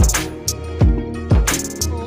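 Background music with a steady beat: a deep kick drum about twice a second, with hi-hat hits and sustained bass and melody notes between the beats.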